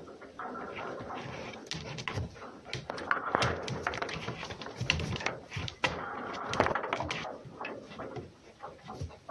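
A fox and a cat play-fighting: scuffling and scratching with paws on a wooden board, mixed with short, throaty animal sounds from the fox, coming in irregular bursts.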